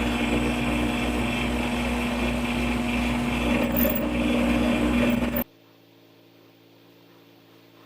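Workshop power tool running steadily, a motor hum over a wide noise, that cuts off abruptly about five and a half seconds in, leaving faint room noise.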